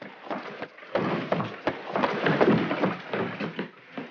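Several people running in boots: a rapid, irregular clatter of footfalls and knocks that starts about a second in.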